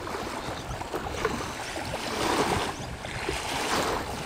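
Gusty wind across the microphone, swelling louder twice, with choppy lake water lapping against the bank.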